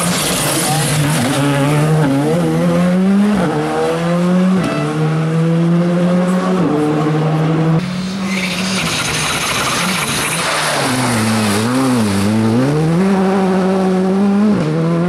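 Rally car engines at full throttle on a special stage, the revs climbing and dropping back in steps as the driver shifts up through the gears. A second car follows, its revs dipping and rising twice as the driver lifts off and gets back on the throttle, then holding high.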